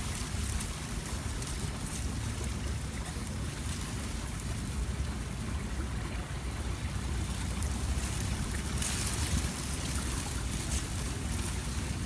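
Steady wind buffeting the microphone: an even low rumble under a broad hiss.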